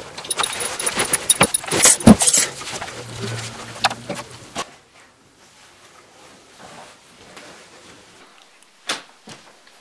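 Clothes rustling, with the metallic jingle and clicks of a belt buckle, as a man undoes and pulls off his jeans. The sound stops abruptly about halfway through, leaving faint rustling and one click near the end.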